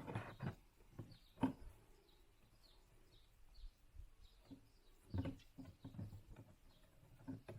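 A few sharp clicks and knocks of parts being handled, the loudest about a second and a half in, with faint bird chirps in the background.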